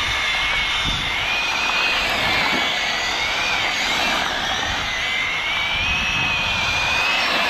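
Arrma Felony 1/7-scale RC car's brushless electric motor and drivetrain whining as the car drives on rough asphalt. The high whine rises and falls a little in pitch with the throttle, over a steady rushing noise.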